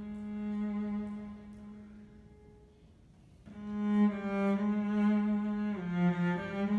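Solo cello bowing long held low notes: one note swells and fades away, then after a short gap a louder held note comes in about three and a half seconds in, dipping briefly to a lower note near the end.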